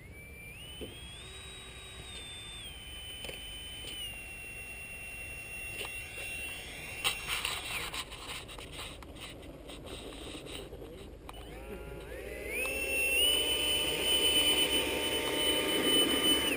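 Electric ducted fan of a Parkzone Habu RC jet, a Change Sun 10-blade rotor, running with a high whine whose pitch steps up and down with the throttle. Clicks and rattles come through around the middle. About twelve seconds in it spools up to a loud, high whine, holds, then cuts off at the very end.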